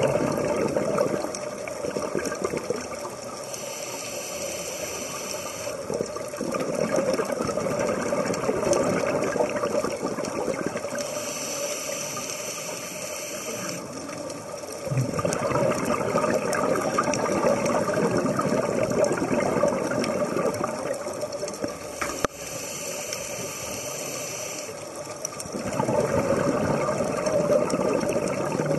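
Scuba diver breathing through a regulator underwater: a hissing inhale of about two to three seconds, then a longer bubbling exhale, in a cycle repeating about every eight to ten seconds.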